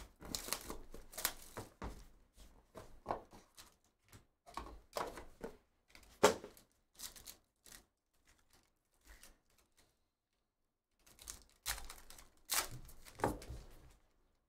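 Trading card box and foil pack being opened by hand: wrapper crinkling and tearing in short rustles, with scattered taps of cardboard and cards and one sharp knock about six seconds in.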